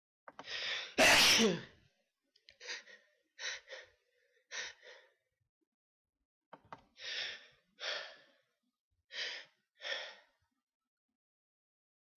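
A loud, sudden sneeze about a second in, followed by a string of shorter, quieter breathy bursts, mostly in pairs, with short silences between them.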